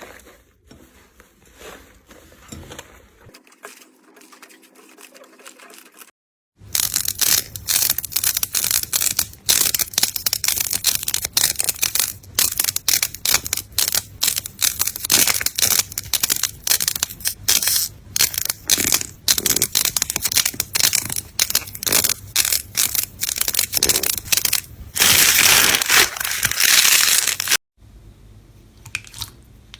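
Slime squeezed and pressed by hand: after a few quiet seconds, a long run of loud, dense crackling and popping begins, packed most thickly near the end before the sound cuts back to quiet.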